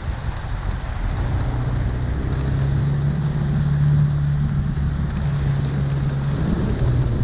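A vehicle engine running steadily over a constant rush of water on the flooded street; the engine hum is strongest in the middle.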